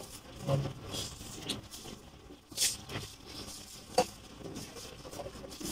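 A person eating finger food at a table: chewing, with soft rustles and taps of hands on the food and tray, and one sharp click about four seconds in.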